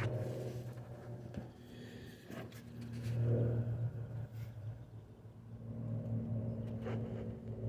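An engine running steadily in the background with a low hum, swelling a little about three seconds in and again near six seconds.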